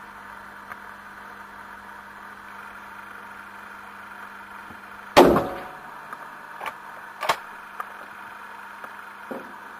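A single shot from a Lee-Enfield No. 1 Mk III rifle in .303 British about five seconds in, with a short reverberant tail, followed by a few sharp metallic clacks as the bolt is worked. A steady hum runs underneath.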